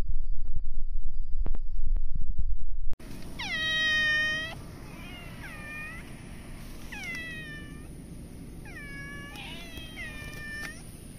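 A domestic cat meowing repeatedly, about five long meows that each start high and fall, beginning about three seconds in. Before that comes a louder low rumble with soft clicks, which cuts off suddenly.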